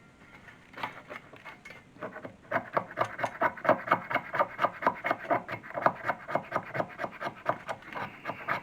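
A stick of resinous fatwood being scraped into shavings for fire-starting tinder. A few light scratches first, then steady rasping strokes at about three a second from about two and a half seconds in.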